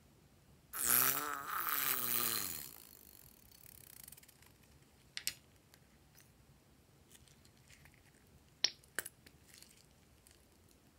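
Rubber balloon filled with slime squeezed so that slime and air squirt out through its cut neck, giving a wavering squeal about two seconds long. A few short sharp clicks follow later.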